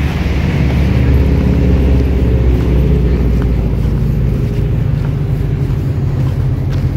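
Wind buffeting the phone's microphone: a steady, heavy low rumble.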